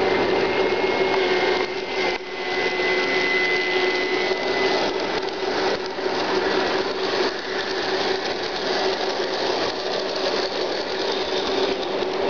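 G-scale model train passing: the Aristocraft diesel units' electric motors and gearboxes whir with a steady hum, over the rolling rattle of the freight cars' wheels on the track.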